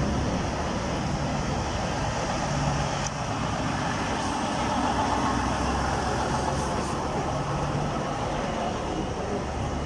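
Several old Mercedes-Benz cars driving slowly past close by, one after another: a steady low engine hum with tyre noise.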